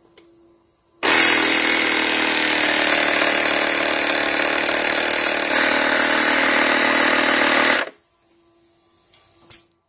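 Craftsman portable air station's small electric compressor switching on and running steadily while pumping air into a bicycle tire, then cutting off suddenly after about seven seconds. A single click near the end.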